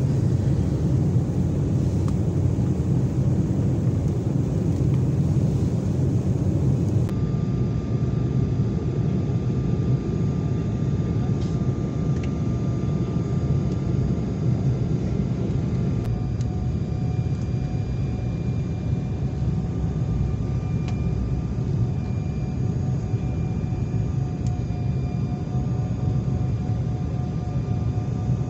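Jet airliner cabin noise from a window seat over the wing: a steady low rush of the engines and airflow as the plane descends. From about halfway through, a few faint steady whining tones sit above the rush.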